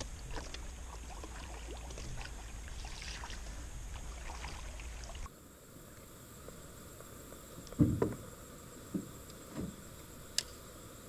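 Sounds of a small jon boat on a river. First there is a steady low rumble with water hiss, then an abrupt cut to a quieter stretch with a few soft knocks and a sharp click near the end.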